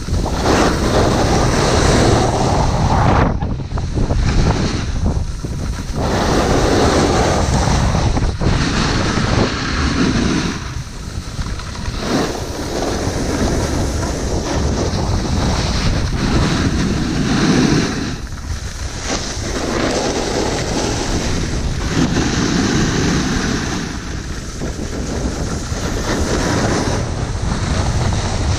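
Wind rushing over the microphone and a snowboard's edges scraping across snow during a downhill run. The noise swells and drops every few seconds.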